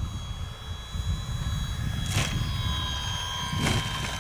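Electric motor and propeller of a Flite Test Freedom Fox RC plane whining steadily as it flies a low pass, with a low wind rumble on the microphone. Two brief hisses come about two and three and a half seconds in.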